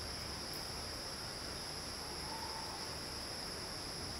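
Steady, high-pitched insect chorus drones without a break, with a faint short tone about two and a half seconds in.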